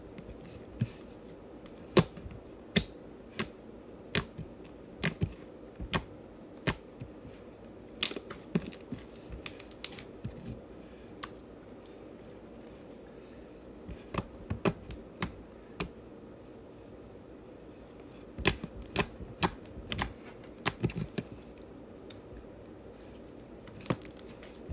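Homemade slime being squeezed, folded and poked by hand, making sharp clicks and pops in irregular clusters, with a few short pauses between them.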